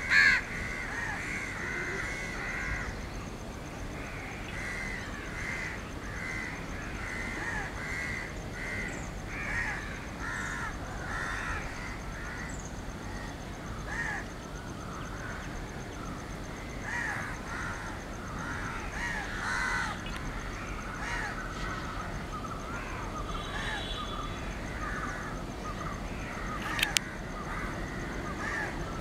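Crows cawing, many short calls overlapping one another without a break, with a single sharp click near the end.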